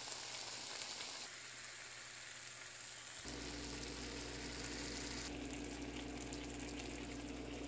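Faint, steady sizzle of diced potatoes and wilting spinach frying in a skillet, with a low hum joining about three seconds in.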